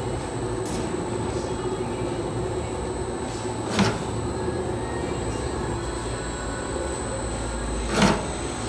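Automatic putty extruding and packing machine running with a steady mechanical hum. Two short, sharp noises sound over the hum, about four seconds apart: one near the middle and one near the end.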